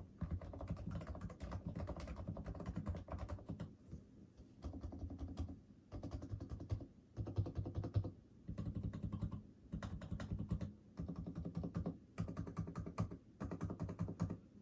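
Fast typing on a Realforce RGB TKL Topre keyboard with PBT keycaps, silencing rings and lubed sliders: dense runs of muted, deep keystrokes broken by short pauses every second or two.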